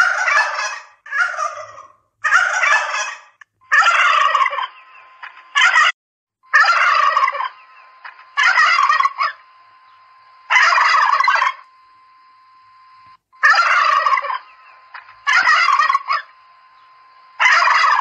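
Domestic turkeys gobbling, one rattling gobble after another, about eleven in all, each under a second long and coming every one to three seconds.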